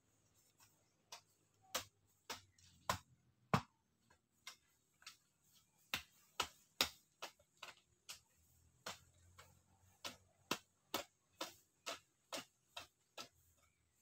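Hoe blade chopping into the soil over and over: a string of sharp strikes, roughly one to two a second, some much louder than others.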